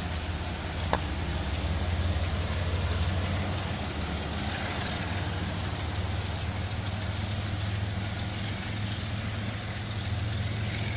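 An engine idling steadily with a low hum, under a constant hiss of rain, with one sharp click about a second in.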